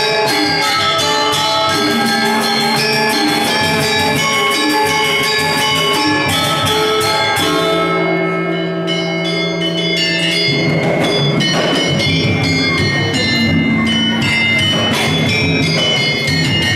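Balinese gamelan gong kebyar playing: rapid, densely interlocking bronze metallophone strikes over ringing held gong tones. About halfway through, the fast high strikes thin out for a couple of seconds while low tones hold, then they pick up again.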